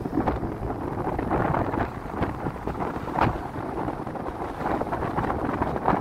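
Wind buffeting the microphone of a moving car, over the car's road noise, in an uneven gusting rush. A brief thump about three seconds in.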